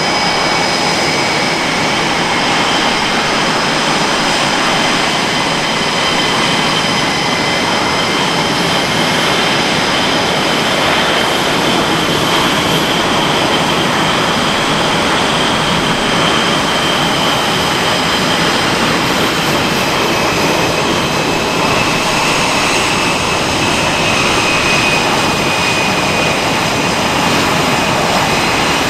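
Jet aircraft engine noise, loud and continuous, a steady rush with high whining tones that slowly shift in pitch.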